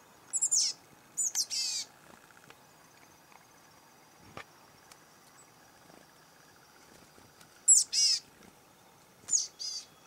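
Chickadees calling: short clusters of high, thin notes that slide downward, a couple of bursts near the start and a couple more near the end.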